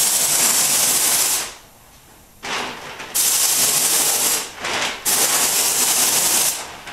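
Compressed-air paint spray gun spraying primer: a loud, steady hiss that starts and stops in three passes of about a second and a half each.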